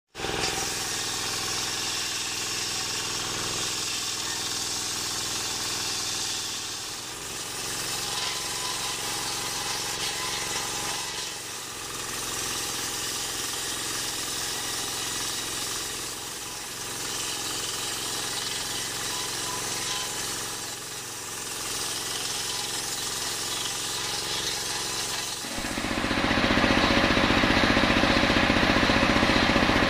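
Homemade engine-driven table circular saw running and cutting lengthwise through a coconut log. The noise dips briefly several times, then about 25 seconds in turns suddenly louder and stays loud.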